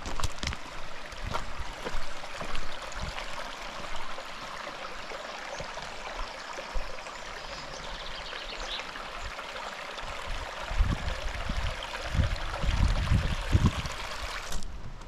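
Mountain stream running over rocks, a steady rush of water, with low bumps in the last few seconds.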